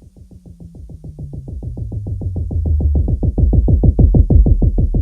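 Bass-drum sample from a drum sequencer, triggered in a fast, even run of about nine hits a second that grows louder, with a low tone underneath stepping down in pitch. It is a dry, punchy, piston-like pulse layered into a sci-fi spaceship engine effect.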